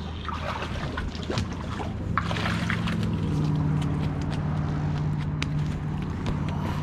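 A motor running with a steady low hum. About two seconds in, a second, higher steady hum joins it and holds. Scattered light clicks and taps from handled gear sound over it.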